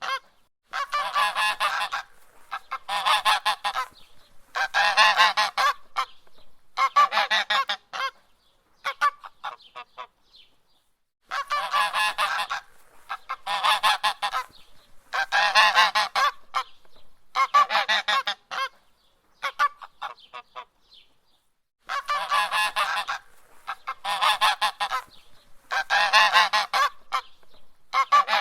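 A goose honking: harsh, loud calls about every second and a half, in runs of about five, with a pause of about two seconds between runs.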